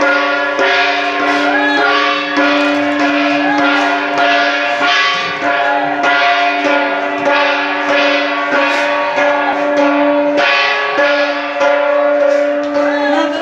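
Hmong shaman's gong struck over and over, about once a second, its ring sustained between strokes, with a high metallic jingling throughout.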